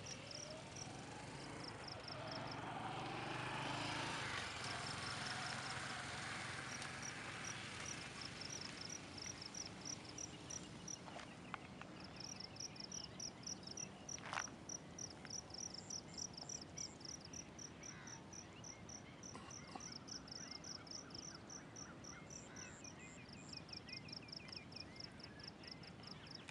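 Insects chirping in trains of rapid high-pitched pulses, in short bursts at first and almost unbroken from about halfway through. A soft rushing swell rises and fades over the first several seconds, with a couple of faint clicks later.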